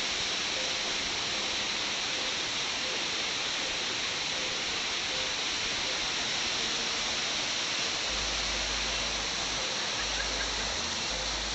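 Steady rush of water from a waterfall, an even hiss with no break or change.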